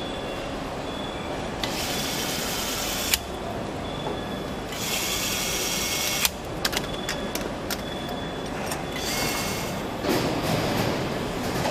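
Handheld nutrunner tightening a bolt in a car's engine bay. It runs in three short whirring spells of a second or so each, the first two cutting off with a sharp click, and a few light ticks follow the second. A steady assembly-hall hum runs underneath.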